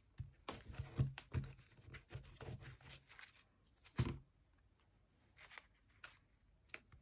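Paper scraps rustling and crackling as a glue stick is rubbed over paper, with one sharp knock about four seconds in, followed by quieter small taps as the pieces are pressed down.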